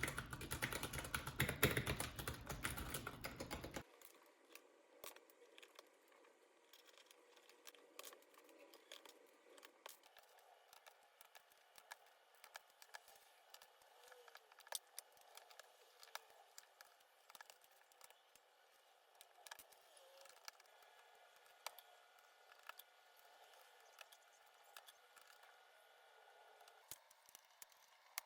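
Keys of a Keychron K6 mechanical keyboard with Gateron Brown switches: a few seconds of fast, dense typing, then scattered, quieter single clicks and taps.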